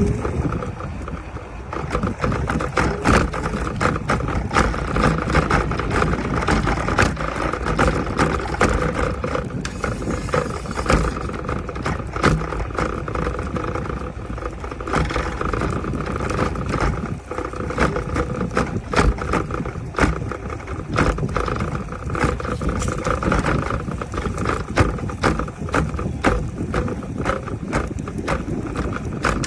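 iSinwheel X3 Pro electric scooter being ridden, its motor giving a steady whine over road rumble. Over it runs a rapid, irregular rattling and clicking, a fault noise from the rear wheel area.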